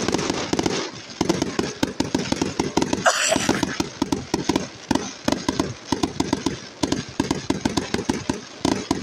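Aerial fireworks going off in a rapid, continuous barrage of bangs and crackles, many reports a second with no pause.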